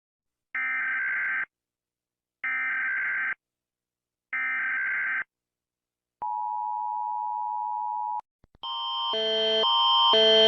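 Emergency Alert System tones: three one-second bursts of screechy digital header noise about a second apart, then a steady single tone for about two seconds. After two faint clicks, a loud alarm of several tones switching back and forth about twice a second starts and grows louder.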